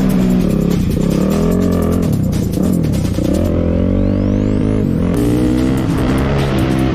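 A motor vehicle engine revving up and down with music playing over it.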